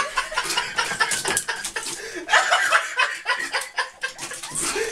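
People chuckling and laughing in short bursts.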